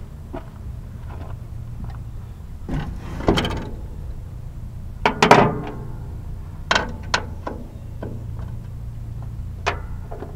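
Metal clanks and knocks from hand work on a tractor seat's slide track and mounting bolts, some ringing briefly. The loudest comes a little past halfway, over a steady low hum.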